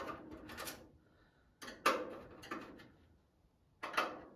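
Steel door and panel of a metal workshop cabinet clanking and rattling under the hand as the loosened door is nudged to realign it. The clanks come in a few short clusters a second or two apart.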